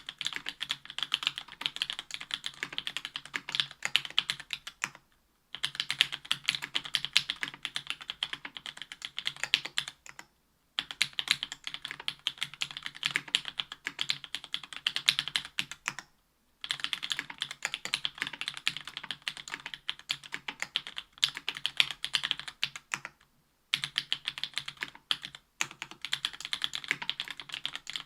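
Fast, continuous typing on a Special Whale LinWorks mechanical keyboard with stock JWK Black 62g linear switches, an aluminium plate and GMK ABS keycaps: a dense, even patter of keystrokes. The typing stops briefly four times, about five, ten, sixteen and twenty-three seconds in.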